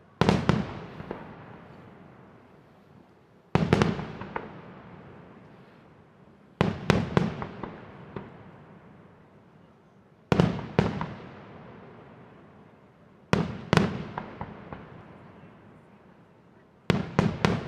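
Aerial firework shells bursting overhead in six volleys, each of two to four loud bangs close together, about every three to four seconds, with the echo of each volley dying away before the next.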